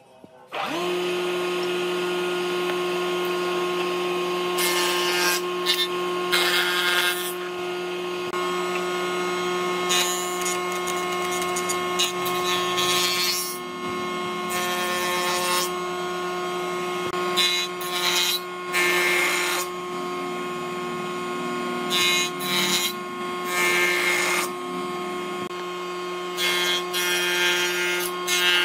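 Jointer on a combination woodworking machine running with a steady hum that comes on about a second in. Thick wood slabs are fed across the cutterhead again and again, giving about ten loud bursts of cutting noise over the hum.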